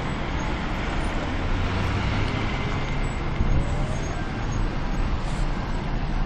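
Steady outdoor rumbling noise with no blast or bang, and a faint rising whine about halfway through.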